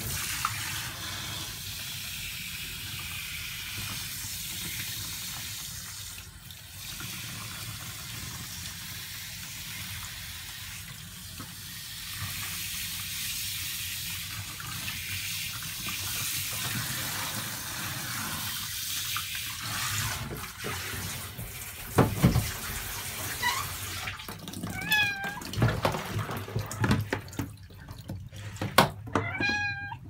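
Handheld shower head spraying a steady stream of water, rinsing shampoo off a wet kitten. The spray stops after about twenty seconds, followed by a few knocks. Near the end, a month-old Norwegian Forest Cat kitten mews several times in short, high calls.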